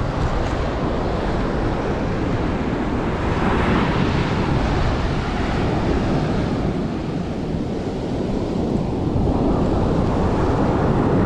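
Surf washing up a beach, with gusty wind buffeting the microphone; the rushing swells a few seconds in and again near the end.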